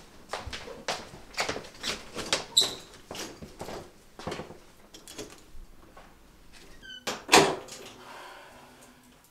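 Footsteps and an interior door being handled: a run of clicks and knocks, then a short squeak about seven seconds in, followed at once by a loud knock, the loudest sound here.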